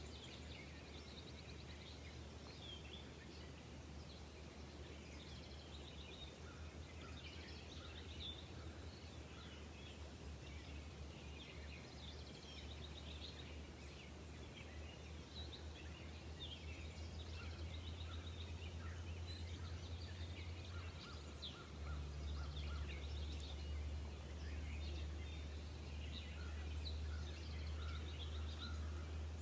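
Outdoor ambience of several birds singing and calling, with short chirps and trills throughout, over a steady low rumble that grows louder about two-thirds of the way through.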